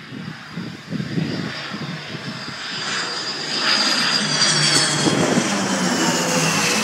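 Small private jet passing close on its landing approach: the engine noise swells over a few seconds and its high turbine whine glides down in pitch as it goes by. The onlookers take it for a Learjet.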